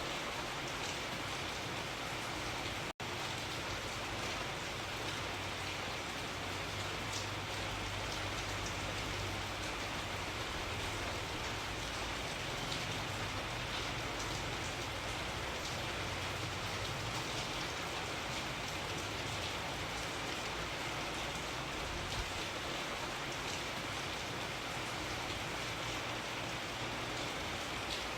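Steady rain falling, an even hiss with scattered drop ticks. The sound cuts out for an instant about three seconds in.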